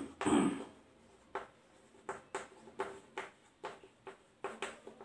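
Chalk writing on a blackboard: an uneven run of short taps and scrapes, about two or three a second, as letters are written. A brief louder sound comes right at the start.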